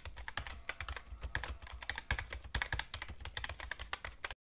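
Keyboard typing: a rapid, irregular run of key clicks that cuts off suddenly just before the end.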